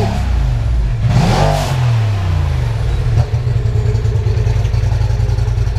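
Polaris RZR Turbo S side-by-side's turbocharged engine revving hard during a burnout. Its pitch swings up and down with a rushing hiss about a second in, then it holds at steady high revs with a rapid pulsing note.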